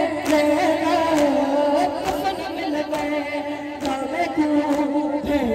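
Voices chanting a noha, a Shia mourning lament, in long, slowly wavering held notes.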